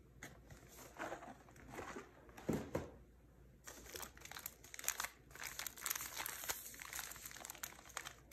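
Packaging rustling and crinkling as snack packets are moved about in a cardboard box and a plastic-wrapped biscuit pack is lifted out. There is a dull bump about two and a half seconds in, and the crinkling grows dense and steady for the second half.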